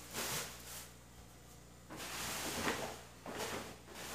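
Plastic grocery bags rustling as they are handled, in a few noisy bursts with a short lull about a second in.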